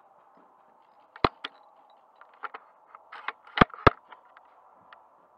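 Airsoft gunfire: a scatter of sharp cracks at uneven intervals. The loudest comes about a second in and a close pair follows past halfway, with fainter pops in between.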